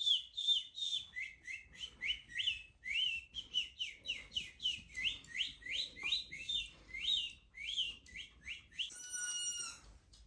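A bird chirping over and over in quick, sweeping whistled notes, about three a second. Near the end comes a brief, steady whistle-like tone lasting about a second.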